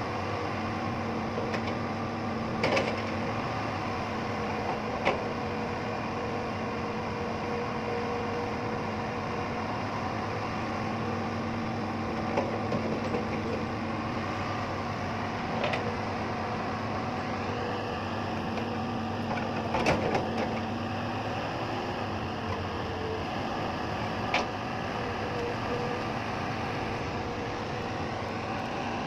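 Hitachi Zaxis crawler excavator's diesel engine running steadily under load while it digs soil, with a few sharp knocks from the bucket. A higher whine joins the engine a little past the middle.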